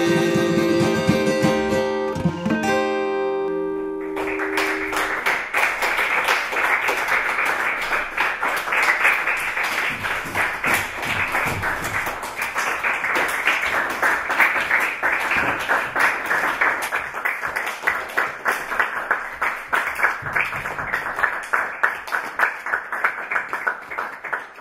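Acoustic guitar's last chords ringing out, then from about four seconds in a small audience clapping, which cuts off suddenly at the end.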